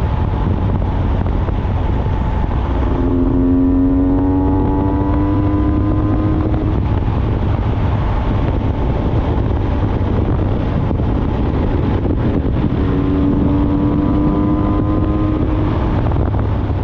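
Honda NSR 125's two-stroke single-cylinder engine running at road speed under heavy wind rumble on the microphone. About three seconds in, and again about thirteen seconds in, the engine note climbs slowly for a few seconds as the bike pulls harder in gear.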